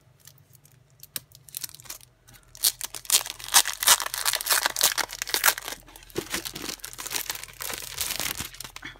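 Clear plastic cellophane wrapper crinkling and crackling as a scrapbook paper pad is unwrapped and slid out of it. A few light handling clicks at first, then dense crinkling starts about two seconds in, loudest in the middle, and fades off near the end.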